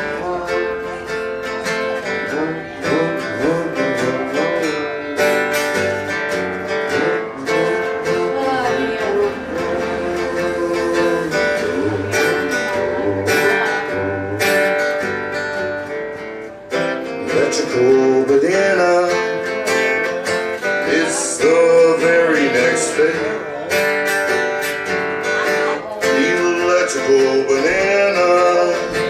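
A band playing live, with strummed guitar under a melody line that slides and bends in pitch. The music dips briefly a little past halfway, then comes back louder.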